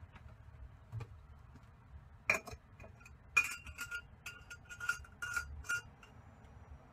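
A quick series of light clinks of small hard objects, metal or glass, each with a brief ring, starting a little after two seconds in and lasting about three and a half seconds.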